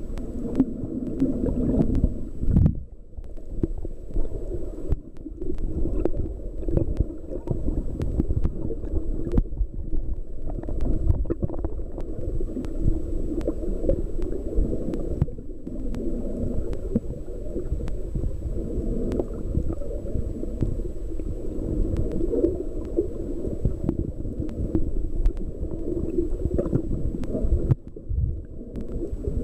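Muffled underwater rumble and gurgling water, heard through a camera's waterproof housing, with scattered small clicks.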